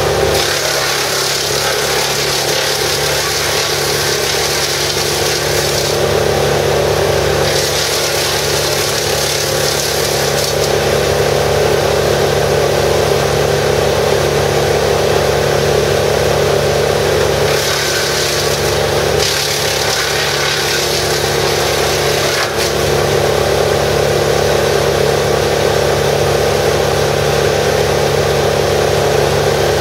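Vermeer BC1000XL brush chipper running steadily at working speed while branches are fed through, its engine droning under a loud hiss of wood being chipped and blown out the discharge chute. The chipping hiss drops away briefly twice, about six seconds in and again about eighteen seconds in, while the engine runs on.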